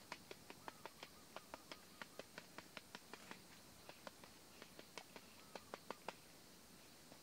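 A run of faint sharp clicks, about five a second at first, then more scattered, with a few louder ones near the end.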